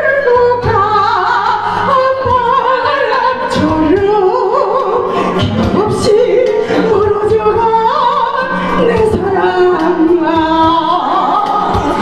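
A woman singing a Korean song into a microphone with a wavering vibrato, amplified over karaoke backing music with a steady drum beat.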